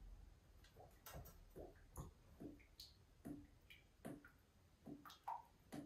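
Faint glugging of vegetable oil poured from a plastic jug into a glass measuring cup: a string of soft, short blips at irregular intervals.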